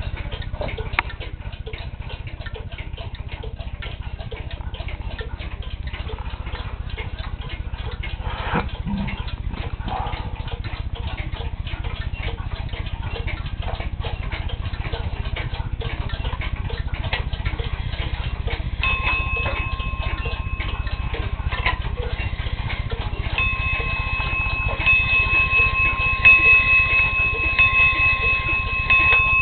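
Dugena weight-driven pendulum wall clock ticking steadily, its movement freshly overhauled. A steady high whine joins the ticking in the last third.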